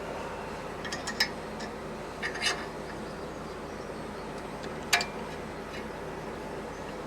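A few short metallic clicks and clinks of parts or tools being handled: a pair about a second in, another around two and a half seconds, and the loudest, with a brief ring, near five seconds. Steady outdoor background noise sits beneath them.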